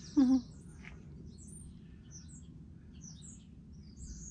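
Small birds chirping on and off in the background over a low steady hum, with one short loud sound of falling pitch about a quarter of a second in.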